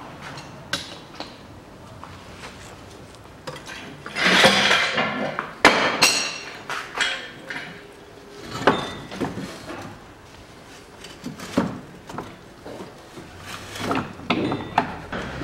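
Metal-on-metal clinks, knocks and scraping as a Volkswagen Tiguan's front steering knuckle is worked up onto the bottom of the strut. There is a louder scraping stretch about four seconds in and several sharp knocks through the rest.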